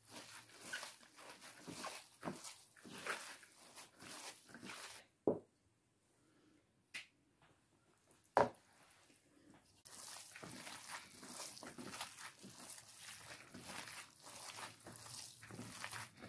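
Gloved hands kneading a moist bulgur mixture in a plastic bowl: faint squishing and crackling of the wet grains and the plastic gloves. A quiet stretch midway is broken by a couple of sharp clicks.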